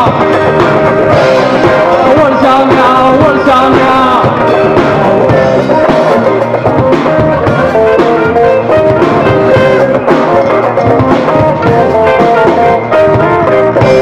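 Rock band playing live and loud: electric guitars, bass guitar and drum kit under a stepping lead melody.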